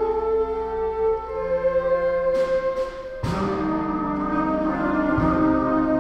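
School concert band playing held notes. About two and a half seconds in come three quick cymbal crashes, then the full band with saxophones and brass comes in on a louder, fuller chord.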